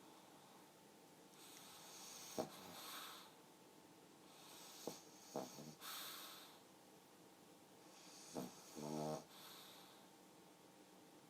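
Sleeping pug snoring softly: three slow, wheezy breaths about three seconds apart, with small clicking snorts. The last breath ends in a short, pitched snore.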